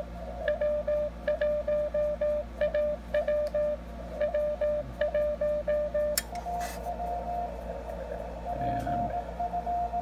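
Morse code (CW) received on a ham transceiver and played through its internal speaker: one steady beeping tone keyed quickly in dots and dashes. About six seconds in there is a click, and the code carries on a little higher in pitch over more background hiss as the antenna is switched from the Xiegu X6100 to the ICOM IC-705.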